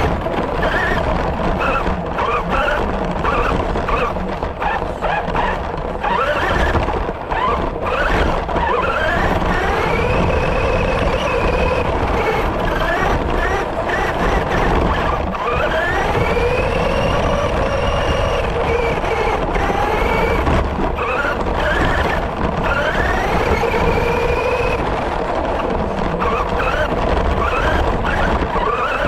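Electric motor of an FTX Carnage RC car whining as it speeds up and slows down again and again, its pitch rising and falling, heard from on board. A steady low rumble runs underneath.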